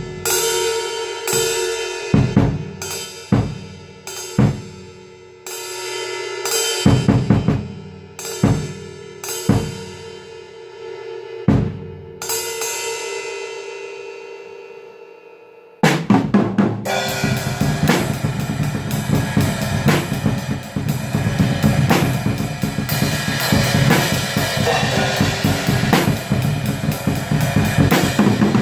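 Atmospheric black metal: slow, separate drum hits with ringing cymbal crashes over a held chord, then about sixteen seconds in the full band comes in at once with dense, continuous drumming.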